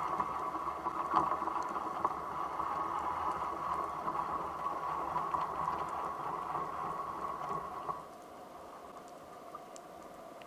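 Underwater water noise picked up through a speargun-mounted camera's housing as the freediver moves: a steady rushing hiss with faint ticks that drops off sharply about eight seconds in.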